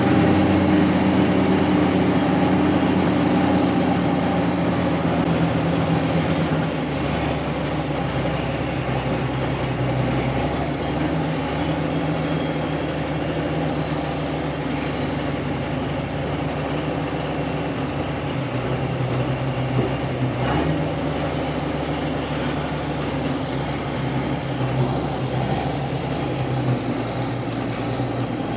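Heavy diesel engine running steadily, easing down to a lower, slightly quieter speed about six seconds in.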